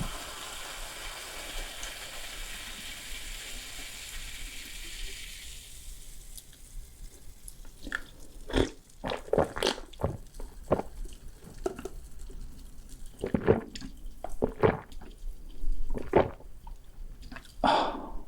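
A steady hiss fades out over the first six seconds. Then comes a run of sharp, uneven crunches and clicks close to the microphone: crunchy food being bitten and chewed.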